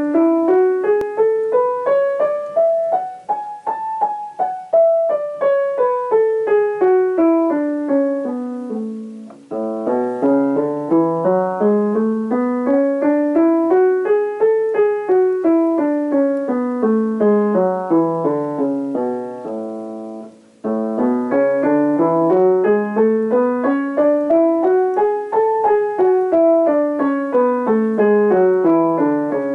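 Upright piano playing A major scales, up and down, one note at a time at an even pace. There are three runs, with short breaks about 9 and 20 seconds in: one hand alone, then the other, then both hands together in octaves.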